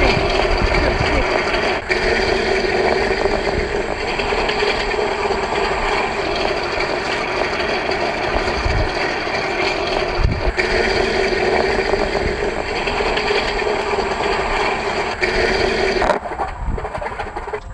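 Engine of a radio-controlled scale Zero model aircraft running steadily at a constant pitch. The sound shifts abruptly about 2 seconds in and again about 10 seconds in, and turns quieter and rougher near the end.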